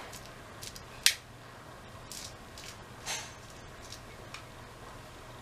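Straight razor scraping along the edge of a beard in a few short, brief strokes, the sharpest about a second in.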